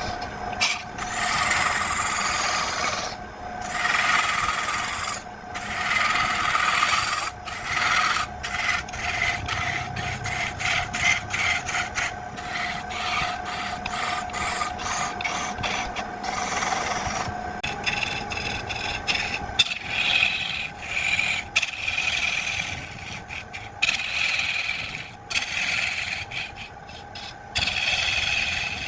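A cutting or sanding tool scraping and rubbing against wood spinning on a wood lathe, in repeated strokes with short breaks, over the lathe's steady hum.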